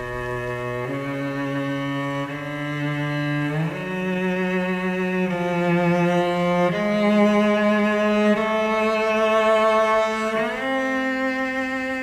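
Slow cello music: long held notes with vibrato, changing every second or two in a line that climbs overall.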